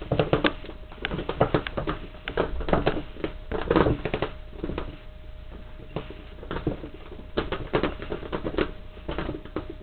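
A cat's paws and claws scrabbling and thumping on carpet as she spins and pounces after her tail: clusters of quick, irregular taps and scuffs.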